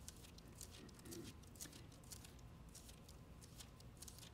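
Near silence with faint, scattered rustles and ticks of Bible pages being turned to a passage.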